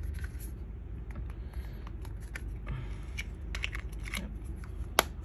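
Small clear plastic case of colour filters being closed and handled: light plastic clicks and rustles, with one sharp click near the end.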